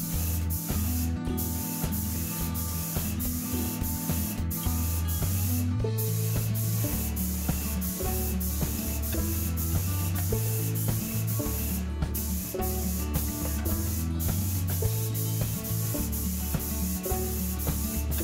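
Background music with a steady beat and bass line, over the continuous hiss of a Graco Magnum X7 airless paint sprayer spraying paint onto drywall.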